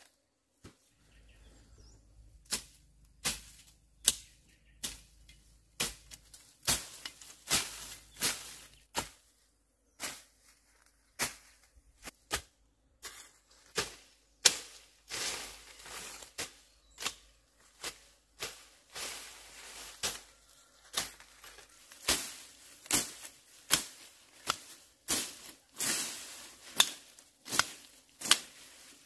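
Overgrown grass and undergrowth being cleared by hand: a run of sharp swishes and snaps of dry stems, about one or two a second and coming faster near the end, with rustling of dry grass in between.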